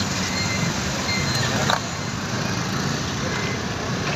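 Steady city traffic noise heard from a moving motorbike in a stream of motorbikes and cars: engines running and road noise. There is a short knock a little under two seconds in.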